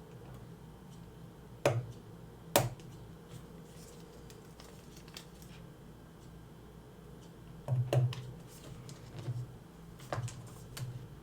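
Small metal tools and watch case parts clicking and tapping against each other during wristwatch case disassembly. Two sharp clicks nearly a second apart, then a short cluster of clicks about eight seconds in and a few lighter ones near the end.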